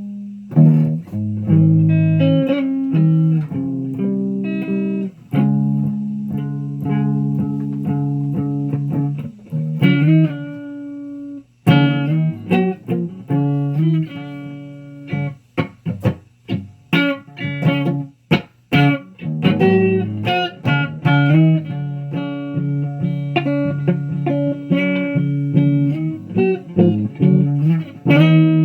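Electric guitar being played: held chords and single notes, with one note left to ring out about ten seconds in and a run of short, choppy muted strums a little after the middle.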